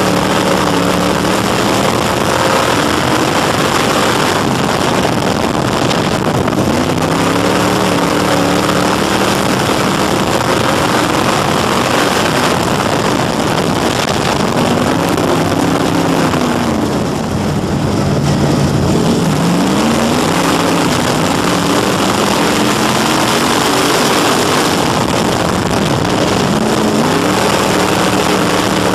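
Crate Sportsman dirt race car's V8 crate engine at racing speed, heard from inside the cockpit: loud and constant, its pitch climbing and falling off again lap after lap as the driver gets on and off the throttle through the turns. There is a brief lift about two-thirds of the way through, with the revs falling and then climbing again.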